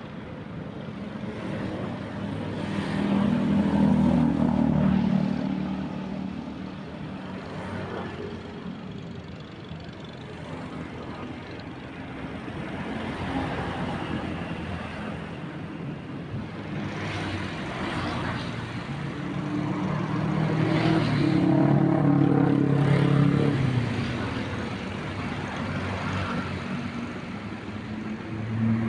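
Boat engine running steadily under a wash of wind and water noise. It swells louder twice, about a few seconds in and again past the middle.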